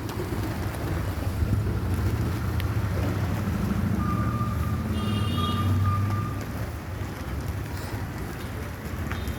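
Steady low rumble of passing vehicle traffic, with wind buffeting the microphone. Near the middle a thin steady tone holds for a couple of seconds, and a short high-pitched call sounds over it.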